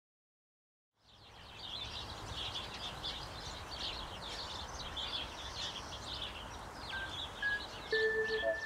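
Chorus of small birds singing and chirping over a low steady background rumble, fading in from silence about a second in. Near the end a tune of held musical notes starts over it.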